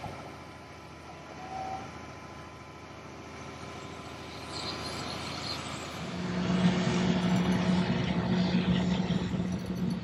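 Heavy diesel equipment running, a low engine hum that gets louder and steadier about six seconds in.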